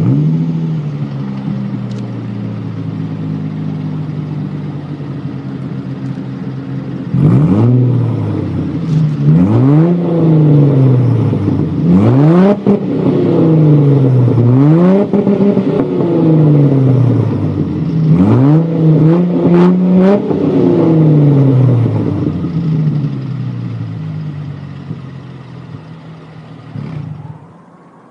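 2000 Ford Mustang's 3.8-litre V6 running through an X-pipe exhaust: idling just after starting, then revved about six times in quick blips from about seven seconds in, each climbing and falling back. It then settles back to idle and stops near the end.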